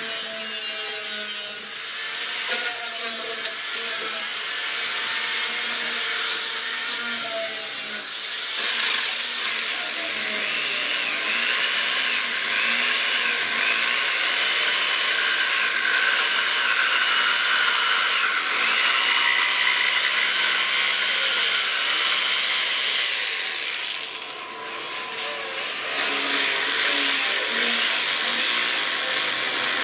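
Electric jigsaw sawing through a thick rosewood chair seat, a steady buzzing cut with the motor's whine rising and falling as the blade loads in the wood. The sawing dips briefly about three-quarters of the way through, then goes on.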